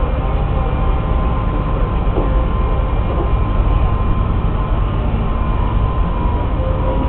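Tracked excavator's diesel engine running steadily as it works, a low rumble with a faint steady whine above it.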